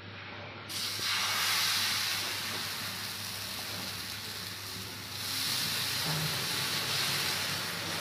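Batter sizzling on a hot black iron griddle (tawa): a steady hiss that starts suddenly about a second in as the batter lands, dips briefly about five seconds in, then swells again as more batter is ladled on and spread.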